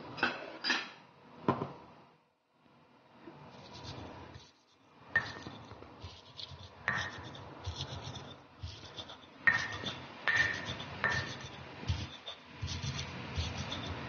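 Stone pestle grinding red chillies and salt in a stone mortar (cobek and ulekan). It scrapes and rubs, with sharp stone-on-stone knocks every second or two.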